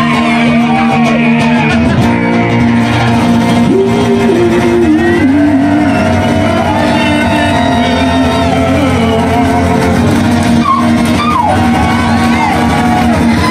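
Live acoustic music: two acoustic guitars strummed with a man singing loudly into a microphone.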